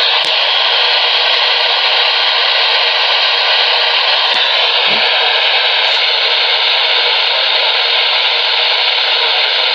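Steady hiss of radio static from a receiver's speaker, heard where the broadcast signal has dropped out.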